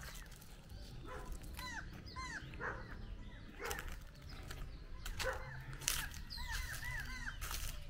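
Short, high, arching animal calls repeated in quick clusters of two or three, over scattered crackling steps in dry leaf litter.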